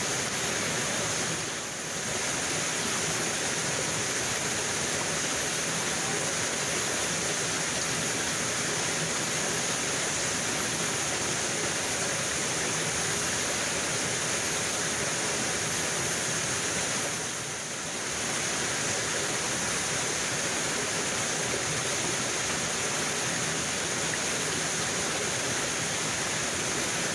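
Mountain stream rushing over rocks, a steady hiss of running water that dips briefly twice.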